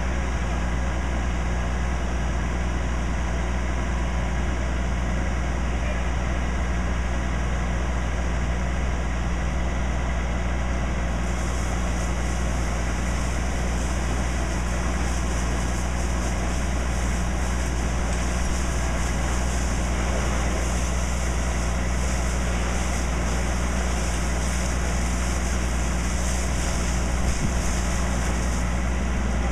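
Fire engine running steadily at idle. About a third of the way in, a high-pressure hose stream opens with a steady hiss of spraying water, which stops just before the end.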